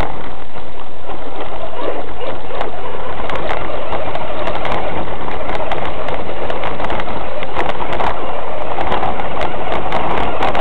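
A 1/6-scale RC Hummer driving over gravel and weeds, heard through its own onboard camera: loud, steady drivetrain and tyre noise with frequent sharp crackles of stones.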